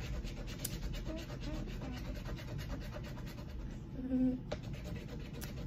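Small plastic doll parts rubbing and scratching against each other in the hands as a mini doll is pushed together, a continuous fine scratchy rustle.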